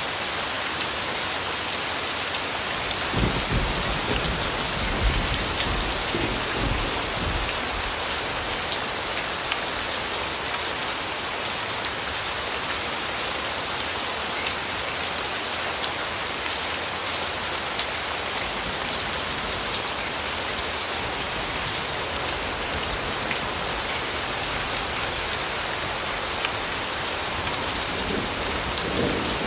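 Steady rain falling on a surface, an even hiss with scattered drop patter. A low rumble joins in about three seconds in and lasts a few seconds.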